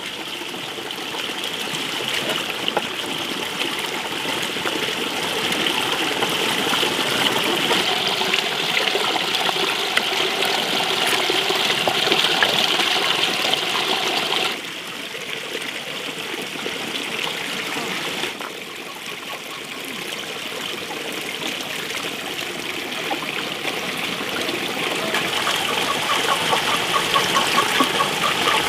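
Tap water pouring steadily into a full metal basin and splashing over its rim onto concrete. The level drops suddenly about halfway through and builds again toward the end.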